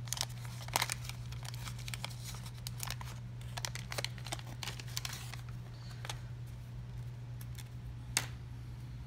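Crinkling and rustling of baseball cards and pack wrappers being handled, with many small clicks that are busiest in the first half and one sharper click near the end, over a steady low hum.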